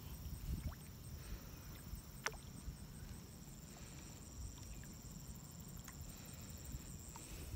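Wind rumbling on the microphone at the edge of a pond, with a few small sharp pops and splashes as fish take floating food pellets at the surface.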